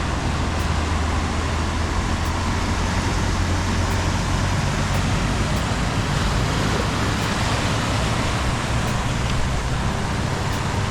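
Heavy rain pouring steadily, with the low steady hum of vehicle engines in slow traffic on a flooded road.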